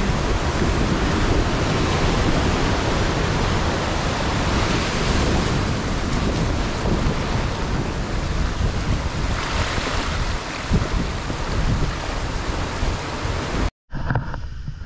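Surf washing in over a flat rock ledge: a continuous rush of breaking and foaming water, with wind rumbling on the microphone. Near the end it breaks off for a moment and comes back quieter.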